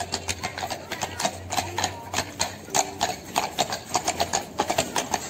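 Hooves of a pair of carriage horses clip-clopping on paving stones as they pull a carriage past, several sharp strikes a second.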